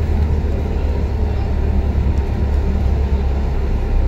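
Steady low rumble of a double-decker bus under way, heard from inside the bus: engine and road noise.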